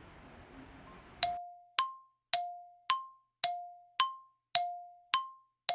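Countdown timer sound effect: short ringing ticks alternating between a lower and a higher pitch, about two a second, starting a little over a second in. It counts off the seconds given to answer a quiz item.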